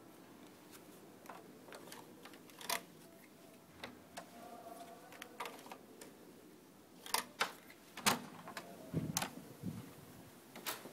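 Elevator machinery clicking and clunking: irregular sharp clicks throughout, a short hum a little past four seconds, and heavier low thumps near nine seconds.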